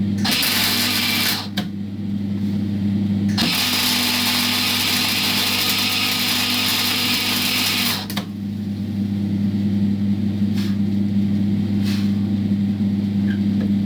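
MIG welder arc crackling as a nut is welded onto a seized engine mounting bolt: a short burst of about a second, then a longer weld of about four and a half seconds. A steady low hum runs underneath.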